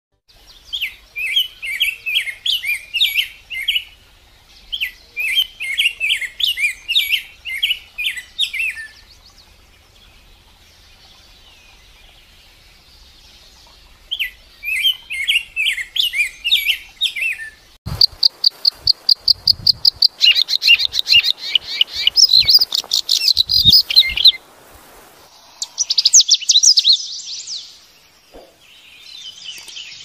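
Wild songbirds singing: runs of quick, high chirps in spells of a few seconds with short pauses between. About halfway through it switches abruptly to a fast, high trill and busier song from other birds.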